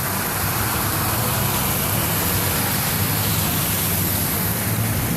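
A vehicle engine's low, steady hum under a steady rushing noise of traffic moving through deep flood water.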